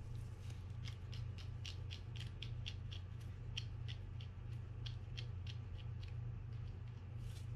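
A run of light clicks, about three a second, from hand tools being handled and adjusted, over a steady low hum.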